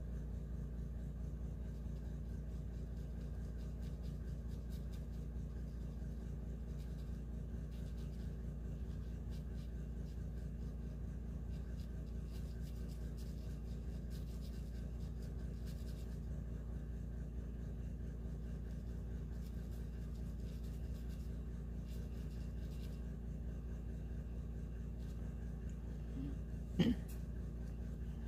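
Faint, light scratching of a pencil stroking on paper over a steady low hum. A single sharp click sounds near the end.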